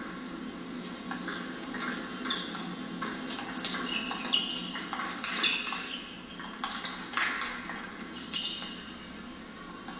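Table tennis rally: irregular sharp clicks of the ball on bats and table, mixed with short high squeaks of the players' shoes on the sports-hall floor.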